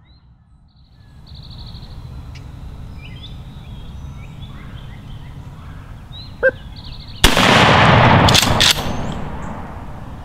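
A single shotgun shot about seven seconds in, loud and sudden, its report lingering for a second and a half before dying away slowly: the shot that drops a strutting wild turkey gobbler. Small birds chirp faintly before it.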